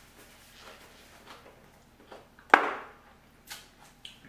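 Close-miked eating sounds of people chewing, with a few faint clicks and rustles and one sharp, loud, short sound about two and a half seconds in.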